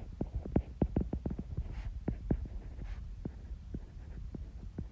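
Irregular light taps and clicks, several a second, over a low steady hum.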